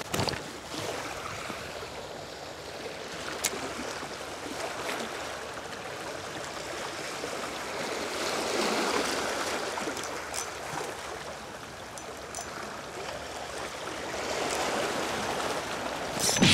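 Small sea waves washing over and draining off the rocks at the edge of a breakwater: a steady rush of water that swells and eases, loudest about eight seconds in and again near the end, with a few faint clicks.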